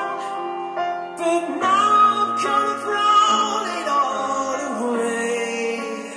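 Male vocalist singing live into a microphone, holding long notes with vibrato over sustained keyboard chords.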